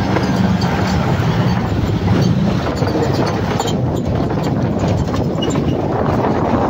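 Steady engine and road noise from a vehicle being driven, with scattered rattling clicks over it.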